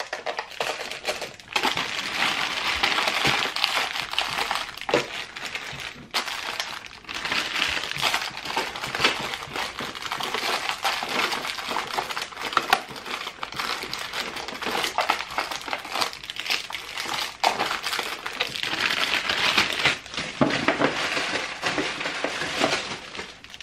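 Clear plastic zip-lock bags crinkling and rustling as handfuls of metal rhinestone shoe charms are taken out and put into plastic storage drawers, with many small clicks and clinks.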